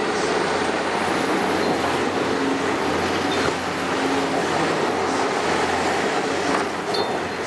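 Caterpillar 336E hydraulic excavator's diesel engine and hydraulics running steadily under load while its boom moves, with a brief hum from the hydraulics a few seconds in.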